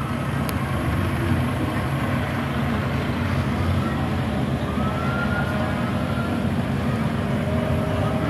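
Diesel engines of a Kubota compact tractor and a Kubota wheel loader running as they drive slowly past, a steady low engine sound.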